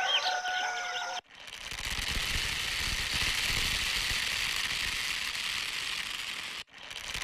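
Dried soybeans pouring onto a round woven bamboo sieve: a steady hissing rattle of many beans landing, lasting about five seconds and cutting off suddenly. A few sustained pitched notes come before it in the first second.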